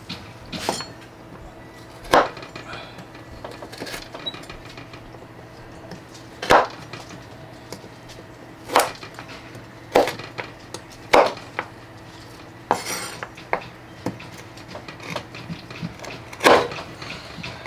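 Meat cleaver chopping frozen beef fat into dice on a bamboo cutting board: sharp, irregularly spaced knocks of the blade into the wood. A faint steady low hum runs underneath.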